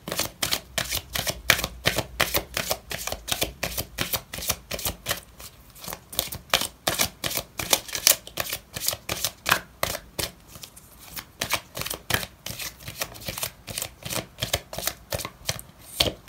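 A deck of oracle cards being shuffled by hand: a steady run of light card snaps and taps, about three or four a second.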